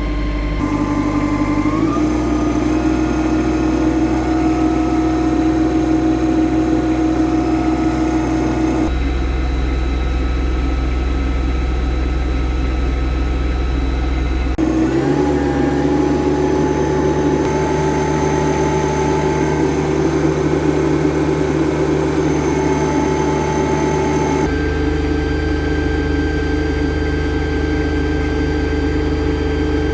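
Yanmar compact tractor's diesel engine running steadily. It speeds up about two seconds in and again about halfway through, then holds each new speed. The sound changes abruptly a few times, as if cut between recordings.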